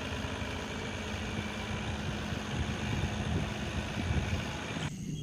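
Truck engine idling steadily, a low rumble.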